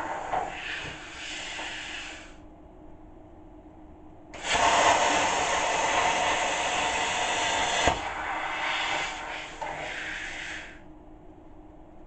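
Plasma cutter cutting steel. A loud, even hiss starts abruptly about four seconds in and stops with a click after about three and a half seconds. A softer hiss then trails off for about three seconds. The fading tail of an earlier cut dies away over the first two seconds.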